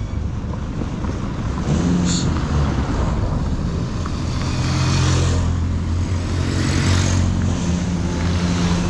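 A motor vehicle's engine running steadily, with road noise that swells twice, about five and seven seconds in.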